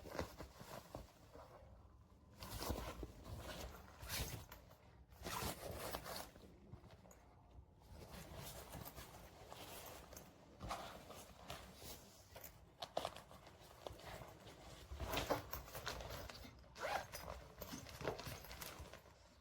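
Zips on a small cabin travel backpack being pulled open and shut several times, with handling of the bag in between.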